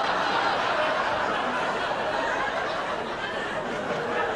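Studio audience laughing: many people laughing together continuously, easing slightly near the end.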